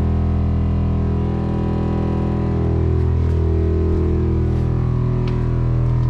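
Electric air-suspension (airbag) compressor running with a steady, even-pitched hum.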